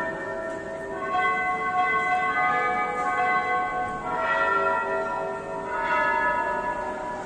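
Bells ringing a sequence of different pitched notes, struck roughly every second or so, each note ringing on and overlapping the next.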